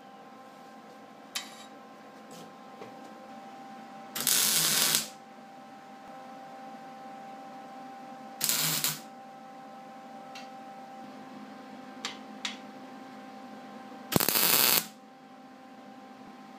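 Wire-feed (MIG) welder laying three short tack welds on steel flat bar, each burst of arc noise lasting under a second and coming a few seconds apart, about four seconds in, past eight seconds and near the end. A few faint clicks come between them.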